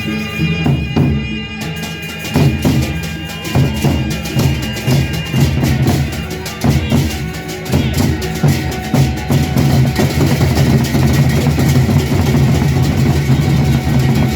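Drum-led percussion music: drums struck in a quick, steady rhythm over sustained low tones, with higher ringing tones above.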